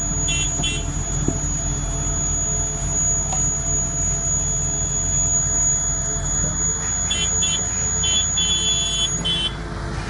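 Diesel engine of a rough-terrain crane running steadily under load, with an electronic warning beeper giving two short beeps about half a second in and a cluster of beeps, one held longer, from about seven seconds in.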